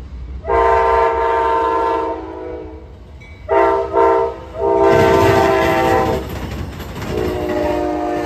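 Amtrak passenger train's GE Genesis diesel locomotive sounding its horn as it approaches: a long blast, two short blasts, then another long blast. After that its wheels clatter over the rail joints as the cars roll past, with the horn sounding again more quietly near the end.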